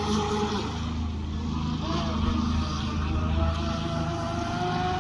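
Ansmann Pike radio-controlled speedboat running flat out across the water. Its motor gives a thin whine that rises slowly in pitch through the second half, over a steady low hum.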